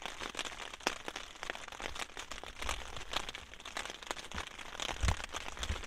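Heavy rain on a tent's flysheet, heard from inside the tent as many irregular taps of drops, with some rustling of the tent fabric. A low thump comes about five seconds in.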